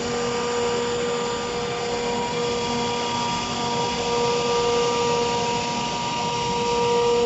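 An electric woodworking machine running steadily: a constant whine over a noisy rush, without a break.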